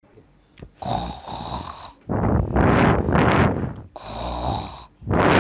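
A person snoring loudly: about four rasping, rattling snore breaths in a row, the longest in the middle.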